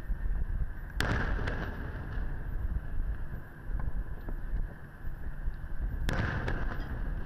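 Two aerial firework shells bursting: two sharp booms about five seconds apart, each trailing off in a rolling echo, with a few faint pops between. A steady low rumble runs underneath.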